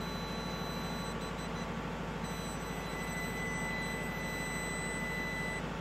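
Steady low hum and hiss, with faint thin high-pitched tones that come and go.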